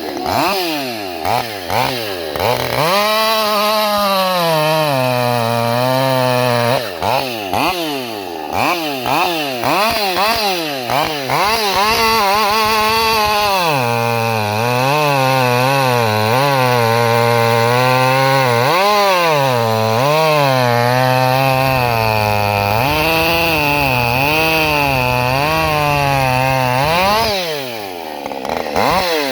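Woodsport-ported Husqvarna 550 Mark II two-stroke chainsaw with a 50 cm bar. It revs in quick blips, then runs at full throttle, its pitch sagging and recovering repeatedly as it bears into the wood. It drops back in pitch near the end.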